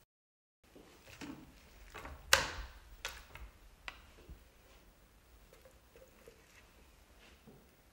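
Raw poultry being handled in a metal roasting tray: wet slaps, squelches and knocks, the loudest about two seconds in, then softer scattered ticks.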